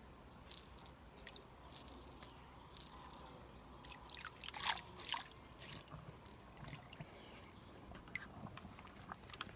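Faint creek water trickling, with scattered small splashes and knocks, a cluster of them about four to five seconds in.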